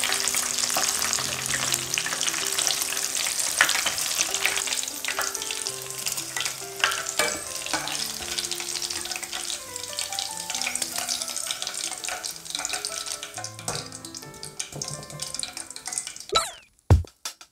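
Breaded egg-and-tomato balls deep-frying in hot oil: a steady crackling sizzle with scattered pops and a few clinks of the metal ladle, fading as the balls are lifted out. Soft background music with held notes plays underneath, and a drum beat starts near the end.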